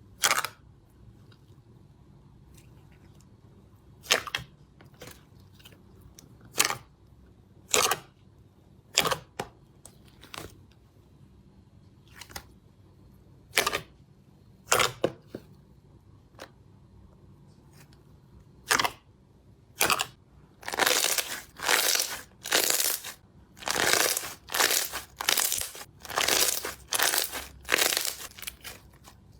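Slime being pressed and worked by hand, giving sharp isolated pops and clicks of trapped air every second or so, then a fast run of crackly squelches about two a second near the end.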